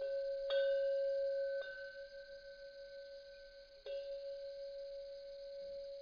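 A deep bell chime struck three times. The tone rings on between strikes, with a slight wavering in it.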